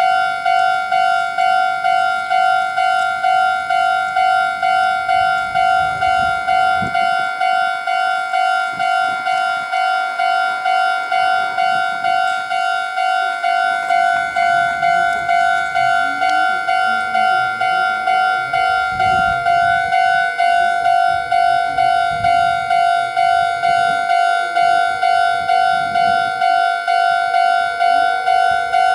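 Japanese level-crossing warning bell ringing: an electronic alarm repeating one pitched tone about twice a second, the signal that the barriers are down for an approaching train. A low rumble comes and goes under it, mostly in the second half.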